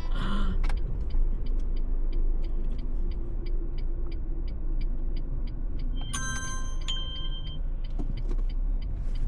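Car interior road noise while driving: a steady low rumble. A fast, even ticking of about four ticks a second runs over it, with a brief cluster of high steady tones about six seconds in.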